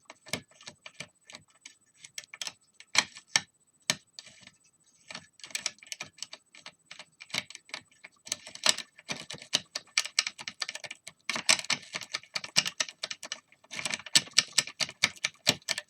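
Metal lock pick clicking and scraping against the pins of a pin-tumbler house lock cylinder. The clicks are sparse and single at first, then come in dense runs of rapid clicking from about five seconds in; the lock is not yet opening.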